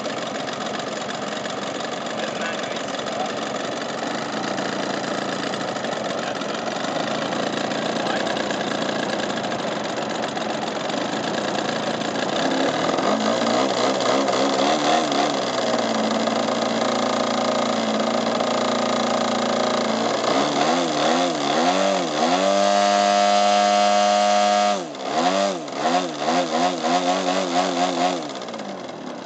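Engine of a large radio-controlled aerobatic plane running on the ground with its propeller spinning. It idles steadily at first, is throttled up in steps from about halfway through to a high rev, drops sharply, is blipped up and down several times, and settles back down near the end.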